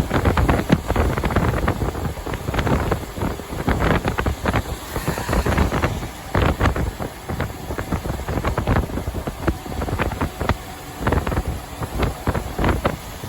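Truck driving on the highway: a constant low road and engine rumble, with wind buffeting the microphone in frequent irregular crackles.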